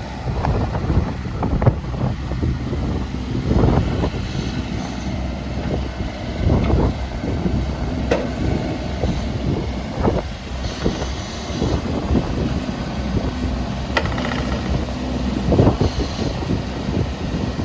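JCB 16C-1 mini excavator's diesel engine running steadily, with irregular knocks and clanks from the machine and wind buffeting the microphone.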